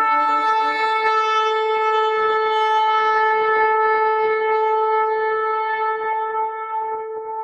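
Shofar blown in one long blast: a brief lower note at the start leaps up to a single held higher note, which weakens and fades out near the end.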